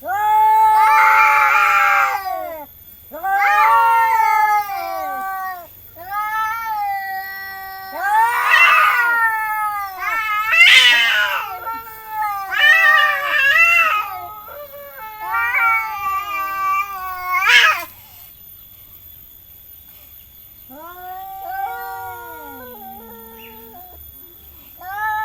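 Cats caterwauling in a territorial standoff: long, wavering yowls one after another, peaking in a sharp rising screech about seventeen seconds in, then quieter, lower yowls near the end.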